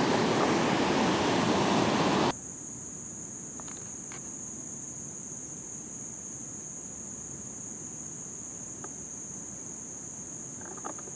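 Loud rushing noise that cuts off suddenly about two seconds in, followed by a steady high-pitched drone of insects singing, with a few faint clicks.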